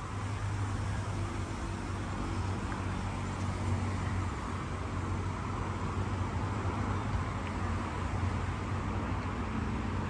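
Road traffic: a motor vehicle engine running steadily with a low hum, over the constant noise of traffic.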